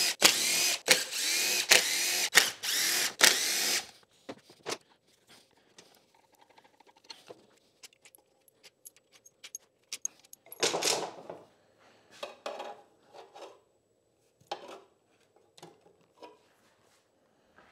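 Cordless power driver whirring in short start-stop bursts for about four seconds, its pitch rising and falling, as it backs out the engine side-cover screws. After that come scattered light metal clicks of screws and parts being handled, with one louder scrape about eleven seconds in.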